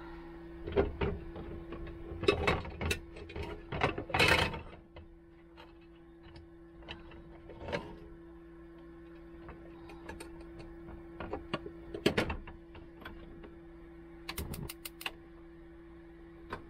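Clatter and knocks of paninis, a plate and a metal stovetop panini press being handled on a gas hob, loudest in the first few seconds. Near the end comes a quick run of about five clicks from the hob's igniter as the burner is lit, over a steady hum.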